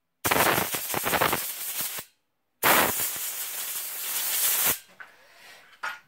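Compressed air blasting in two bursts of about two seconds each, each cut off sharply, blowing sanded-off carbon-brush dust out of a cordless drill's armature commutator.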